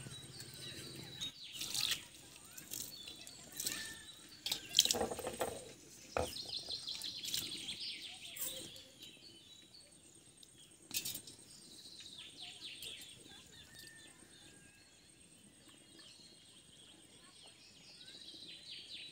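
Small metal pots and bowls knocking and clinking as they are handled and set down, a few sharp knocks with the loudest about five seconds in and another about eleven seconds in. Birds chirp in the background.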